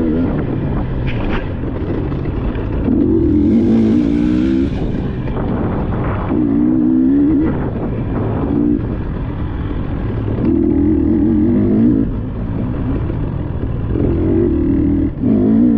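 Off-road dirt bike engine revving in repeated bursts, the throttle opened and closed about half a dozen times, each burst lasting a second or two, with the engine running on lower in between.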